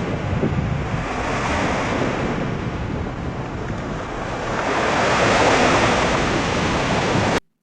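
AI-generated ocean surf from the TangoFlux text-to-audio model: a steady wash of waves that swells about two-thirds of the way through, then stops suddenly near the end.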